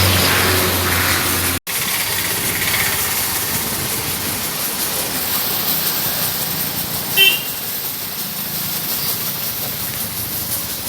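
A motor hums steadily until a brief cut, then a steady hissing wash of noise continues. About seven seconds in, a short vehicle-horn beep sounds once.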